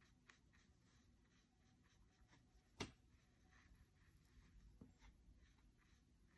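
Near silence, with faint strokes of a watercolour brush on paper and one small click about halfway through.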